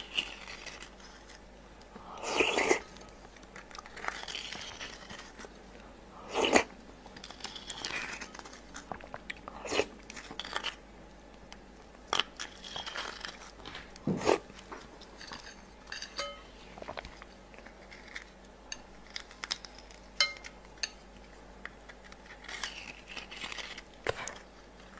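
A small spoon scrapes and taps inside a halved raw sea urchin shell as the roe is scooped out, in scattered short clicks and scrapes. Occasional chewing and mouth sounds come in between.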